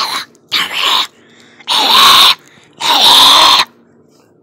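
A person coughing hard four times, each cough longer and louder than the last, the final two very loud and close to the microphone.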